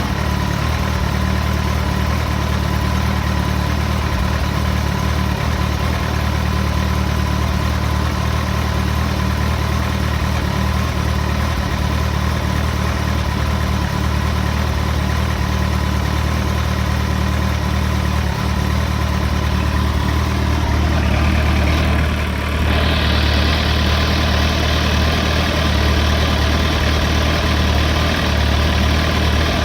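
Kawasaki ZX-14's inline-four engine idling cold, with the clatter the owner hears from the new bike. About three-quarters through, the sound dips briefly and a steady higher hiss joins in.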